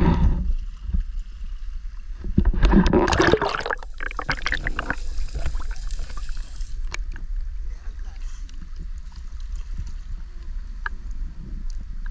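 Sea water splashing and sloshing around a small action camera as it is plunged under the surface, a loud rush of water about two and a half seconds in, then a muffled underwater hiss. After that comes a lower, steady lapping of water with small clicks and splashes.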